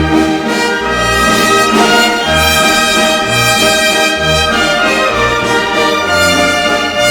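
Orchestral music led by brass, with sustained chords over a shifting bass line.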